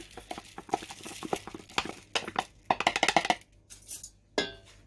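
Rinsed, drained basmati rice poured from a plastic colander into a wide stainless-steel pot, pushed out with a wooden spatula: the grains patter onto the metal as a dense run of small clicks for about three seconds. After that come a few scattered clicks and a single knock near the end.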